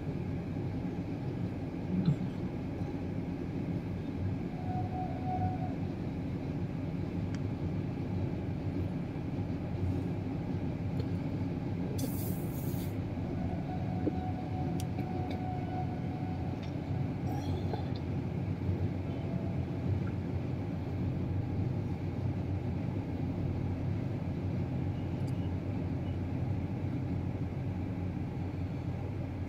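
Train of high-capacity parcel vans hauled by a WAG-9 electric locomotive crossing a steel truss bridge: a steady low rumble of wheels on the bridge, heard from afar.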